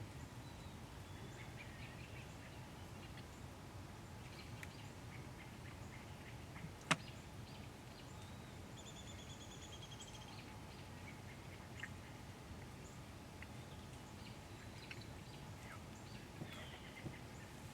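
Quiet outdoor background with faint bird chirps, including a short rapid trill a little past the middle. A single sharp click about seven seconds in.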